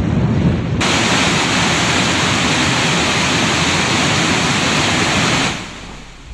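Wind buffeting the microphone, then about a second in a loud, steady rush of floodwater pouring through a dam's open spillway gates, which falls away sharply near the end.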